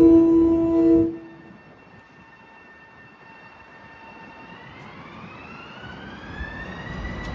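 Electric commuter train sounding a loud multi-note horn that cuts off about a second in, followed by a quieter whine from the train that rises smoothly in pitch as it pulls away.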